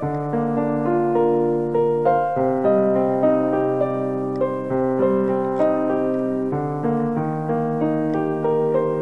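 Background piano music: held low chords that change every couple of seconds, with a melody of single notes played over them.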